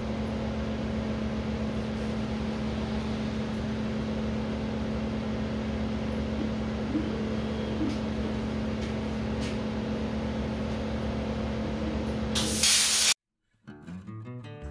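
Steady machine hum with several held tones from the running plasma cutter setup. Near the end comes a loud, short rush of air hiss as the plasma torch fires, and it cuts off suddenly. Then comes a moment of silence and guitar music starts.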